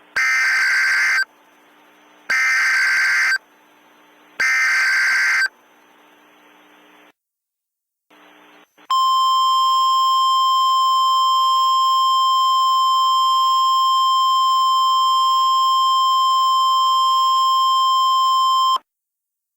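Emergency Alert System header data: three bursts of shrill digital tones, about a second each, two seconds apart. After a few seconds of faint hiss, a single steady alert tone sounds for about ten seconds and cuts off sharply.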